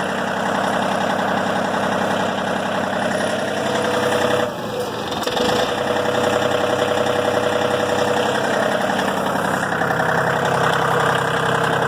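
John Deere 4105's 41 hp Yanmar diesel engine running with the rear PTO engaged. About four and a half seconds in the engine sags and starts to die, then picks back up: the seat safety switch starting to kill the engine as the operator's weight comes off the seat with the PTO on.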